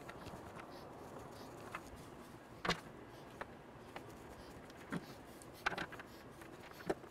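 Faint room hiss with a handful of light clicks and taps, spread out and irregular, as small bolts with rubber washers are pushed by hand into the holes of a motorcycle top case lid.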